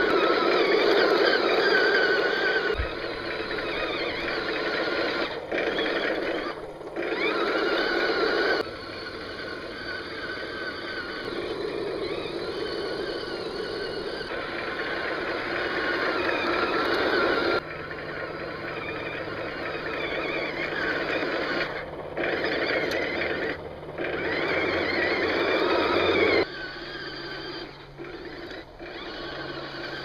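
1/16-scale M1A1 Abrams remote-control toy tank driving, with the whine of its electric drive motors and gearboxes. The sound stops and restarts abruptly several times at edit cuts.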